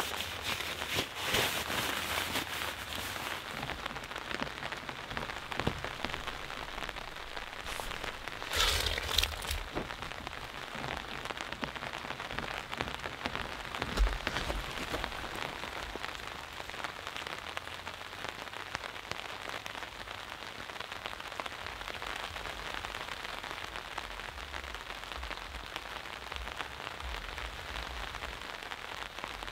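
Steady rain falling in a leaf-littered forest, a constant even hiss. In the first few seconds there is rustling as waterproof rain pants are pulled on, and a brief swish about nine seconds in.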